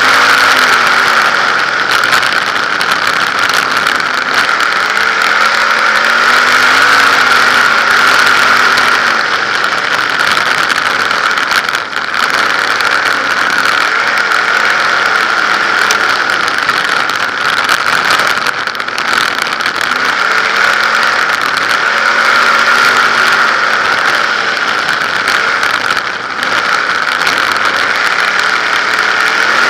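Winged 360 sprint car's V8 heard from an onboard camera, its pitch rising and falling every few seconds as it throttles through the turns, under a steady loud rush of wind and engine noise.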